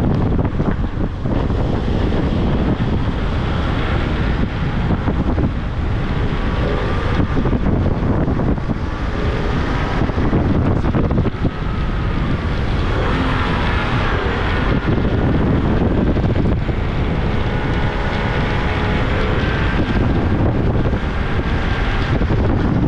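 Heavy wind buffeting the camera microphone at downhill longboarding speed, over a steady rumble of wheels rolling on asphalt.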